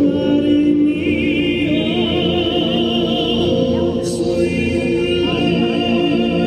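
Choral music: a choir singing sustained notes with vibrato.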